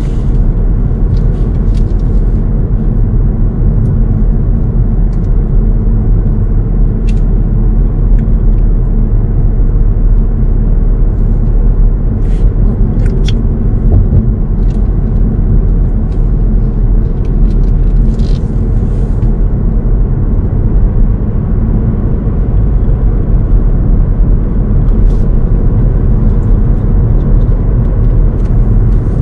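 Steady low rumble of a car driving on a paved road, heard from inside the cabin: tyre and engine noise, with a few brief faint clicks.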